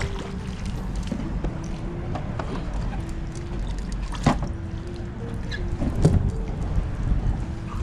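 Water lapping and slapping against a kayak's hull over a steady low rumble, with a few sharp splashes or knocks, one about four seconds in and another about six seconds in.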